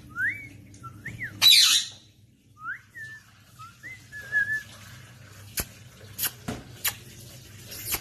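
Blue Indian ringneck parakeet giving a string of short, rising whistled chirps, with one loud harsh burst about a second and a half in. Several sharp clicks follow in the second half, over a steady low hum.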